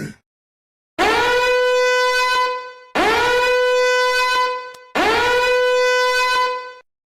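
Three identical long horn blasts, about two seconds apart. Each slides quickly up in pitch at its start, then holds one steady, buzzy note.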